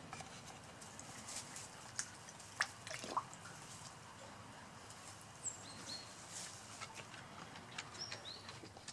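Koi feeding at the surface of a small pond: scattered wet clicks, slurps and drips, with three sharper smacks about two to three seconds in.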